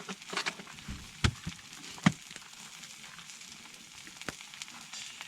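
Food frying with a steady sizzle, broken by scattered small clicks and two sharp knocks, about a second and about two seconds in.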